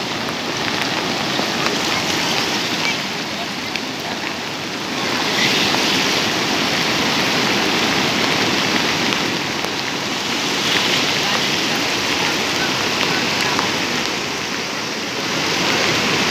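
Muddy floodwater of a swollen river rushing and churning, with rain falling. A dense, steady wash of noise that swells a little about five seconds in and again near the end.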